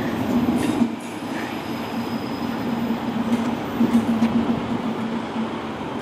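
Freightliner Class 70 diesel-electric freight locomotive passing with its container wagons: a steady low drone from the locomotive, with a few sharp clicks from the wheels over the track about a second in and again around three and four seconds in.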